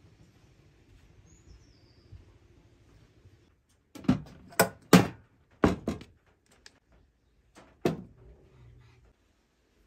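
Aluminium pot lid and enamel bowls knocking and clinking as they are set down on a metal pot: about seven sharp knocks spread over four seconds, starting about four seconds in.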